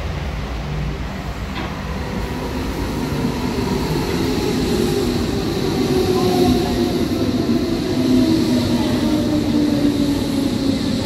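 A Berlin S-Bahn electric train pulling into the platform, its running noise growing louder as it draws near. From about four seconds in, a whine falls slowly in pitch as the train slows.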